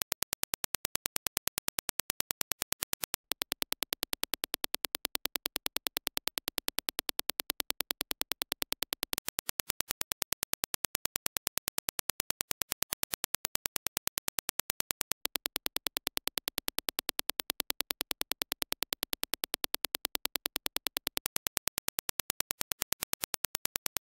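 Reference Dirac impulse test signal: a fast, evenly spaced train of sharp digital clicks, each spanning the whole frequency range. The train breaks off very briefly about three seconds in and again about fifteen seconds in.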